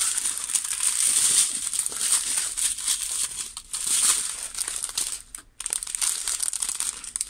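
Small clear plastic zip-lock bags of resin diamond-painting drills crinkling as they are handled and sorted, with a brief pause about five and a half seconds in.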